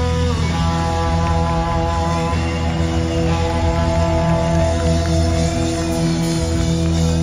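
Rock band's electric guitars and bass holding one long final chord, ringing steadily over a low bass note, with a faint wavering high tone above it, as the song ends.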